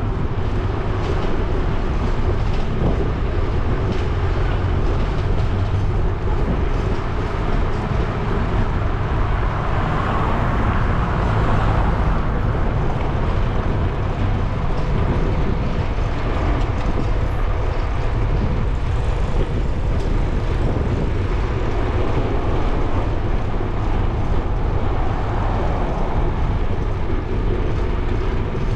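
Steady rumbling noise of a bicycle ride: wind on the microphone and the ride itself, with motor traffic passing on the street alongside and swelling now and then.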